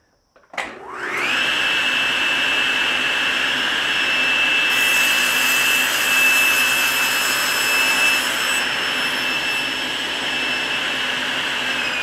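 SawStop 10-inch contractor table saw switched on about half a second in, its blade spinning up quickly to a steady high whine. From about five to nine seconds in the blade rips through a wooden board, adding a hissing cutting noise. Near the end the saw is switched off and the whine starts to fall as the blade spins down.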